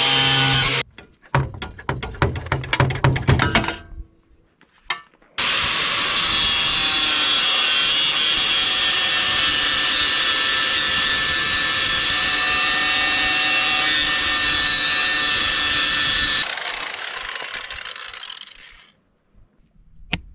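Angle grinder with a thin cutoff wheel cutting rusted steel floor. The run cuts out about a second in and is followed by a couple of seconds of choppy, stop-start cutting and a short pause. The grinder then runs steadily at full speed for about eleven seconds before it is switched off and winds down.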